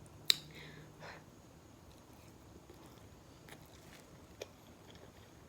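Quiet sounds of a person eating: a sharp click about a third of a second in, then faint chewing with a few small clicks.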